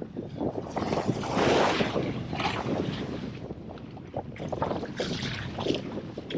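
Gusty wind buffeting the microphone, surging and easing every second or so over the wash of the sea.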